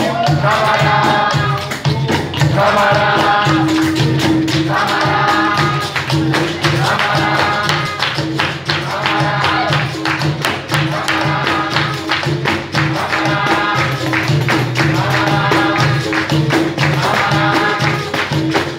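Capoeira roda music: the circle sings short phrases, one about every two seconds, over hand-clapping, a jingling pandeiro and a steady low note underneath.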